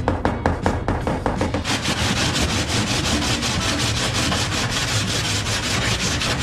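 Sanding on a car body panel: quick back-and-forth strokes for about the first second and a half, then a continuous dense scrubbing.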